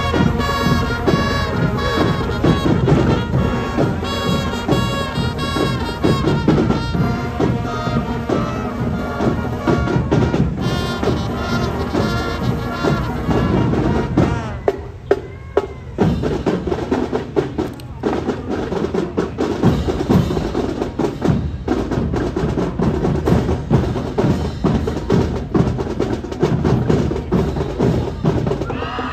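High school marching band playing a tune with horns over drums. About halfway in, the horns stop and the drumline carries on alone, playing a cadence.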